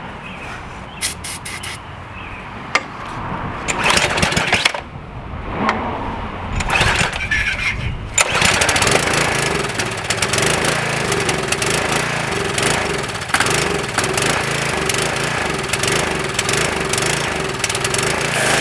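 Briggs & Stratton 6.75 small engine on a Craftsman pressure washer being cranked, firing unevenly at first, then catching about eight seconds in and running steadily. The engine has a no-start fault that the owner puts down to the carburetor or fuel.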